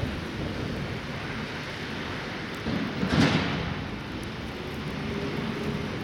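Steady rushing outdoor noise of a blizzard, with one louder whoosh that swells and fades about three seconds in.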